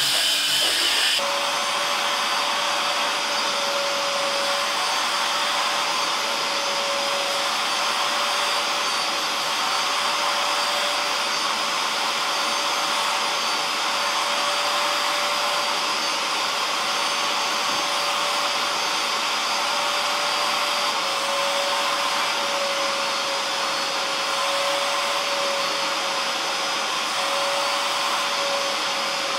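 A cordless drill spinning a scrub brush for about the first second, then the abrupt start of an upholstery extractor's vacuum motor running steadily with a constant whine as its wand is drawn over a cloth car seat, pulling out the shampoo.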